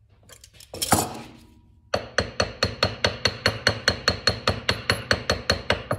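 A single metal clank about a second in, then, from two seconds in, a steady run of sharp ringing metal clacks, about seven a second, from a hand tool working on metal motorcycle fork parts.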